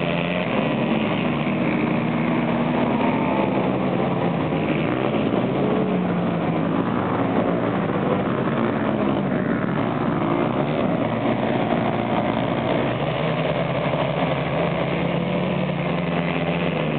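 ATV engines running continuously as quads race laps on a dirt flat track. Their pitch rises and falls as the riders get on and off the throttle.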